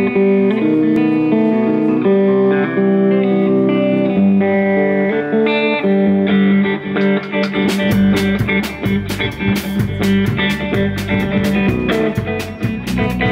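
Live blues band playing an instrumental intro: a guitar picks a riff over a bass guitar line. About eight seconds in, the drum kit comes in with a steady beat.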